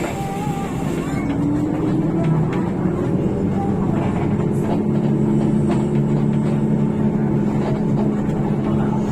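Rear-mounted diesel engine of a Hino RK8 bus heard from inside the cabin, pulling up in pitch over the first couple of seconds and then running steadily, over a constant rumble of road noise.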